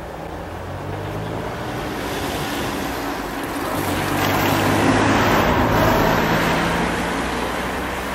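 Car towing a small trailer drives past on the road, its engine hum and tyre noise swelling to a peak about halfway through and then fading.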